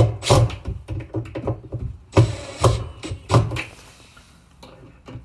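Knocks and clatter of a cabinet door being handled and shifted on its concealed hinges while its height is adjusted: about half a dozen sharp knocks in the first three and a half seconds, with a brief scrape around two seconds in.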